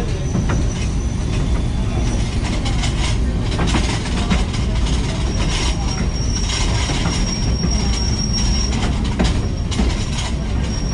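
Railroad caboose rolling along the track: a steady rumble of wheels on rail with scattered clicks, and a thin, high wheel squeal that is clearest from about five to nine seconds in.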